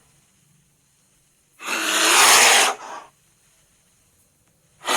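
Bear growling: one rough, noisy growl of about a second and a half, then another starting near the end.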